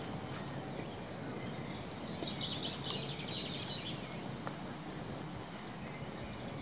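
Steady open-air rush of background noise, with a bird's rapid high chirping trill from about two seconds in to about four seconds in.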